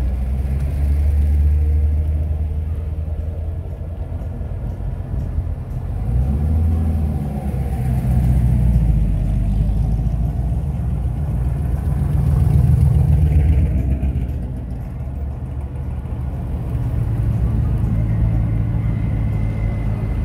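Car engine running with a low rumble that swells and eases several times.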